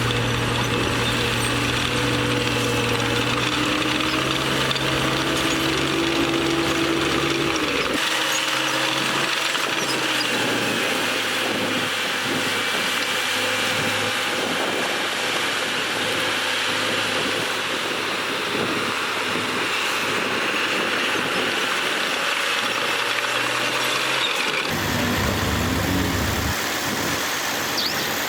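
Diesel engines of heavy construction machinery running steadily under load. The sound changes abruptly about eight seconds in and again near the end.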